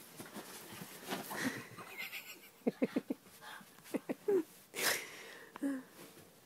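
A small dog gives short, high whimpering yelps: a quick run of four about halfway through, then a couple of single cries. Between them come short hissing squirts from a spray bottle, the dog being scared of the bottle.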